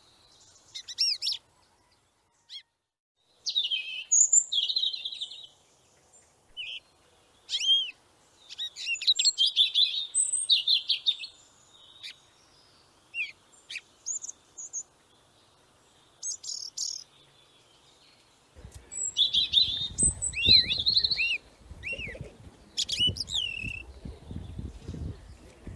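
Small birds chirping and calling in short, high phrases with pauses between, some notes sliding up and down. A low rumbling noise joins in about two-thirds of the way through.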